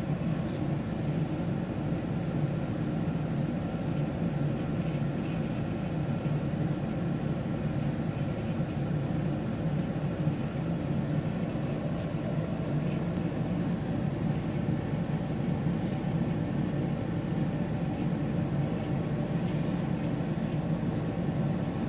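Steady low droning hum with a few faint ticks, starting and stopping abruptly.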